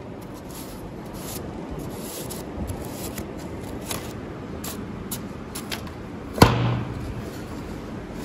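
Handling of a small plywood paper-airplane launcher: paper and wood rubbing with scattered light clicks over a steady hiss, and one sharp knock about six and a half seconds in.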